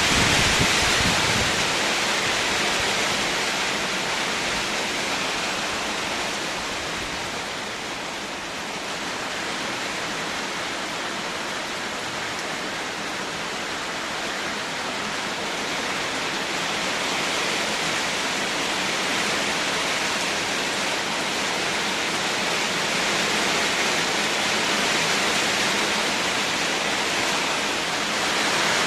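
Heavy rain falling, a steady hiss that eases a little about a third of the way in and swells again later.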